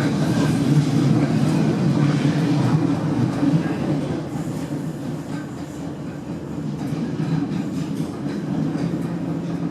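Interior noise of a Class 455 electric multiple unit: a steady rail and traction noise that eases off somewhat about four seconds in.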